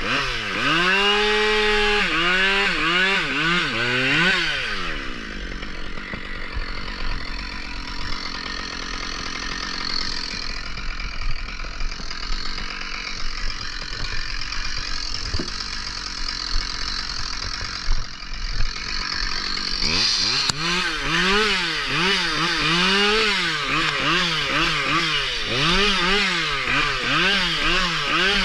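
Two-stroke chainsaw revving up and down in quick repeated blips, then running steadily for about fifteen seconds in the middle, as if held in a cut through a log, and blipping again from about twenty seconds in.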